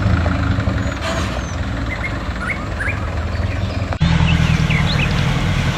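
Vehicle engine running steadily, with birds chirping over it. About four seconds in the sound breaks off sharply and the engine comes back louder.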